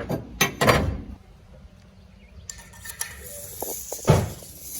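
Steel box tubing being handled and test-fitted: a few metal clanks and knocks in the first second, then a louder knock about four seconds in.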